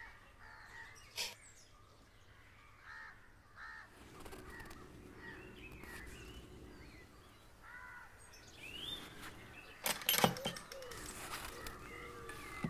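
Faint background ambience of small birds chirping and crows cawing, with a few short, sharp noises about ten seconds in.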